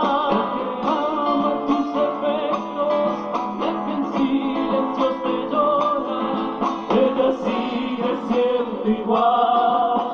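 Live acoustic music: a man sings into a microphone over two strummed and plucked guitars. It is heard from a television broadcast.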